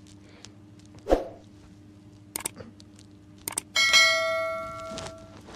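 Subscribe-button sound effect: a thump, two quick double mouse clicks, then a notification bell dings and rings out for about a second and a half, over a steady low hum.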